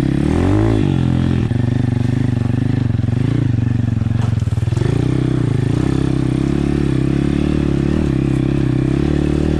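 Apollo RFZ pit bike's single-cylinder four-stroke engine running while being ridden, revving up and back down about half a second in and again around five seconds, otherwise holding a steady pitch.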